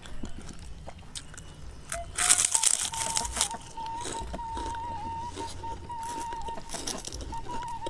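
Close-up crunching bites into crisp kerupuk crackers, loudest for about a second and a half starting two seconds in, with smaller crunches near the end. A thin steady wavering tone sits in the background from about halfway through.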